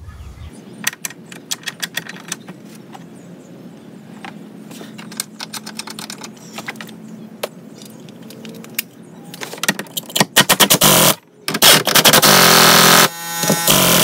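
Light metallic clicks and clinks of bolts and a socket being handled. Then, from about ten seconds in, a cordless power driver runs the seat bolts down in several loud bursts.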